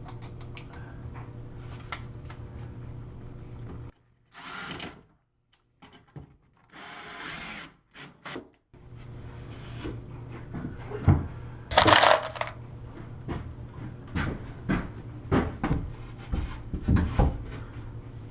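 Work noises of tools and building material being handled: scattered knocks, clicks and taps over a steady low hum. There is a break of near silence in the middle, then a loud scraping burst, followed by more knocks.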